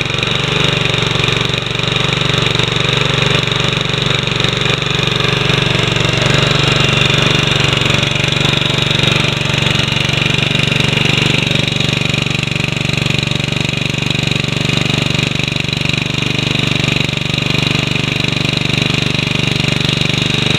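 Honda HRM215 lawn mower's single-cylinder four-stroke engine running steadily, an engine that had been seized and has just been freed and started.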